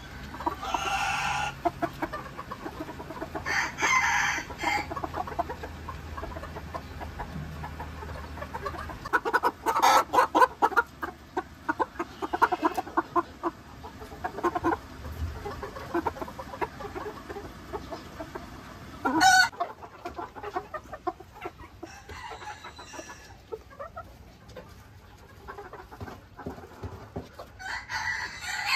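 Ko Shamo chickens crowing and clucking: several crows of a second or two each, about a second in, around four seconds, and twice more late on, with a run of quick clucks in the middle.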